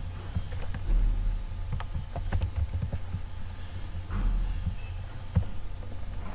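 Typing on a computer keyboard: a handful of separate key taps as a short name is entered, with a few more clicks later on, over a steady low hum.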